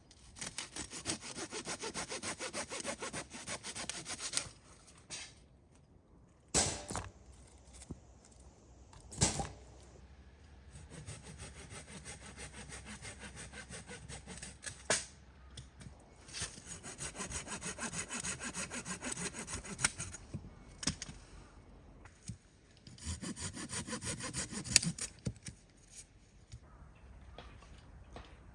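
Hand saw cutting through firewood in several bouts of quick, even back-and-forth strokes, with a few sharp knocks of wood in the pauses between them.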